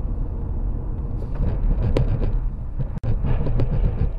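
Steady low road and engine rumble inside a moving car, picked up by a dashcam. From about a second in to nearly four seconds in there is a cluster of sharp knocks and clicks.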